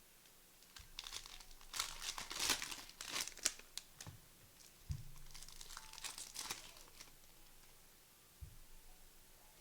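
Basketball trading card pack wrappers being crinkled and torn open by hand, in dense crackling bursts for several seconds, with a few soft thuds along the way.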